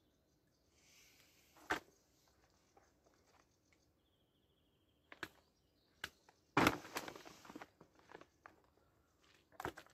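Scattered knocks and rustles close to the microphone, the loudest a little past the middle, with a brief high bird trill about four seconds in.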